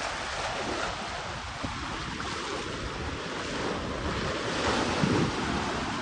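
Sea waves washing ashore, a steady rush of surf, with wind buffeting the microphone in low, uneven rumbles.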